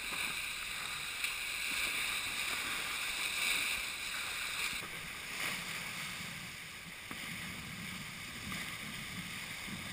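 Steady rush of wind and water from a Tornado racing catamaran sailing fast, with spray over the hulls. About halfway through, the higher hiss drops away and the rush becomes thinner and lower.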